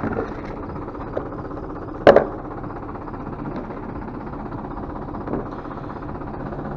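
Tractor engine running steadily, with a sharp knock about two seconds in and a few lighter clicks as the screw-on lid of a plastic sprayer tank is worked loose and lifted off.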